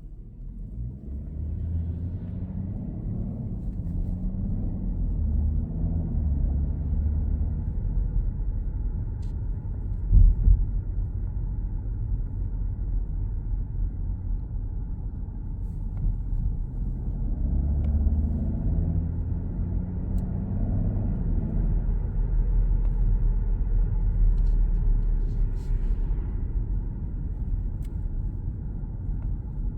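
2025 BMW X5 driving and accelerating, a low rumble that swells several times, with faint steady tones above it: an abnormal noise that the owner hears while accelerating. A single short knock about ten seconds in is the loudest moment.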